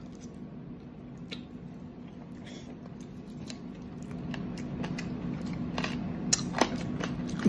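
A person eating chicken: faint chewing and the handling of chicken pieces on a plate, with a few soft clicks and smacks, over a steady low hum.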